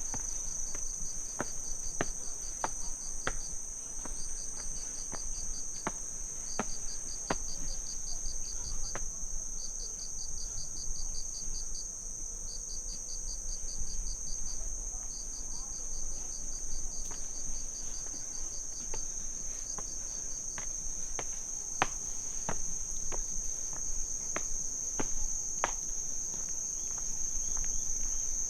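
Autumn insects, crickets by their sound, chirping. A steady high-pitched drone runs under pulsed trills that come in runs of a second or two with short gaps. Footsteps on the path sound as sharp ticks about every two-thirds of a second.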